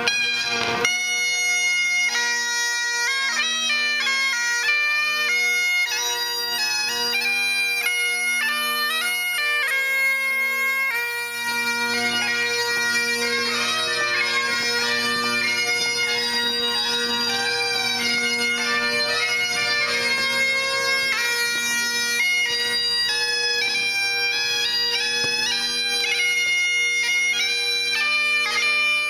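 Bagpipes playing a slow melody over steady, unbroken drones, starting at once and running without pause.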